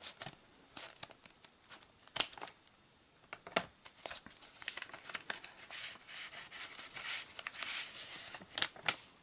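White paper envelope being torn and pulled open by hand: short tears and paper rustling and crinkling. The sharpest tears come about two and three and a half seconds in, with denser rustling later on.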